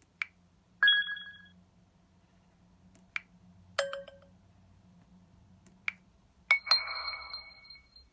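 Three short, different electronic alert tones from an LG Spirit phone, each ringing out for under a second, the last one longest. Each tone is preceded by a sharp click about half a second before it.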